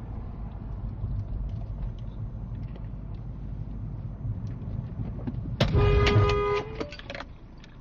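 Car horn sounding one steady blast of about a second and a half, heard over the low hum of the engine and road noise inside the car. It is a warning at a driver who failed to wait and give way.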